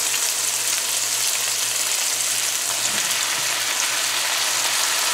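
Steady sizzling of hot oil in a frying pan where onion, garlic, scallion and tomato are frying, as raw eggplant strips are added.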